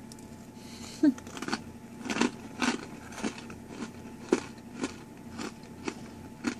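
Crunchy biting and chewing of a hard, dry freeze-dried ice cream sandwich: a sharp crack about a second in, then steady crunches about twice a second.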